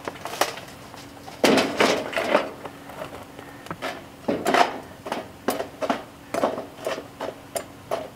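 Hot charcoal briquettes clattering as they are poured from a chimney starter, then metal tongs clinking against the briquettes as they are set one by one under a cast iron Dutch oven: a scatter of separate clinks and knocks.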